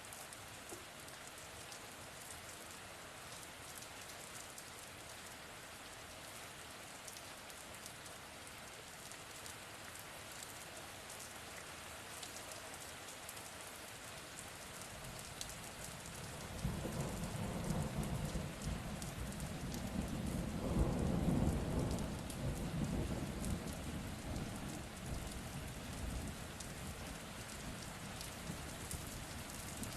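Steady rain falling, with a long rolling rumble of thunder that builds about halfway through, peaks a few seconds later and slowly dies away.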